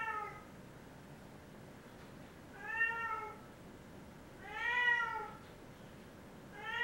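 Domestic cat meowing again and again while being given a bath: drawn-out meows about every two seconds, each rising and then falling in pitch.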